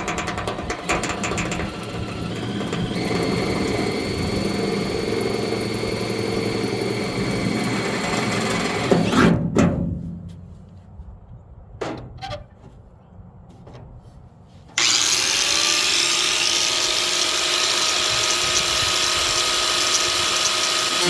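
Power tools working the sheet metal of a truck bed. One tool runs steadily for about nine seconds and stops, followed by a few sharp clicks and knocks. About fifteen seconds in, a high-pitched, grinder-like tool starts suddenly and runs loud and steady.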